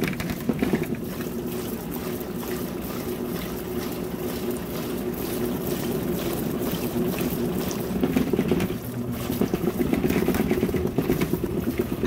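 Folding portable mini washing machine on its spin cycle: the small electric motor hums steadily as it whirls the spin basket, and the machine rattles on a wobbly table, growing rougher and louder about two-thirds of the way in. Water trickles out of the drain hose.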